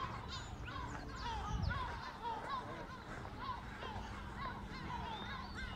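Outdoor street ambience: distant indistinct voices and many short, high chirps, with a faint low steady hum coming in about two-thirds of the way through.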